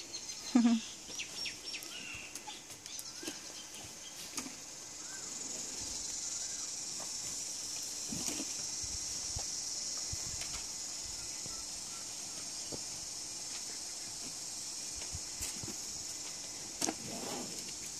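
Steady high-pitched insect drone, growing stronger after about five seconds, with a few faint chirps and scattered soft knocks.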